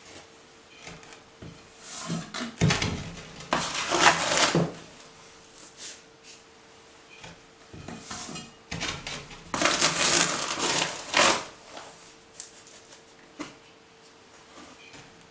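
Powdered ore and sodium hydroxide mixture poured by the scoopful into a stainless steel reaction chamber: two noisy pours, about three and ten seconds in. Between them come smaller scrapes and knocks of the plastic scoop.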